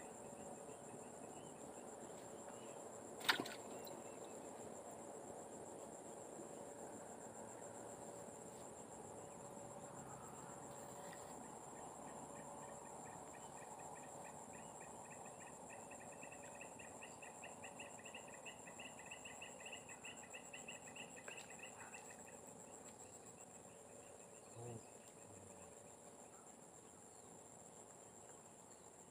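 Faint chorus of insects: a steady high-pitched drone throughout, joined through the middle by a rapidly pulsing trill. One sharp click a few seconds in and a soft thump near the end.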